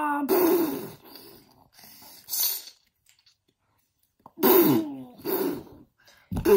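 A child making growling and roaring monster noises with his voice, mixed with breathy hissing effects, in short bursts with a pause of about a second and a half in the middle.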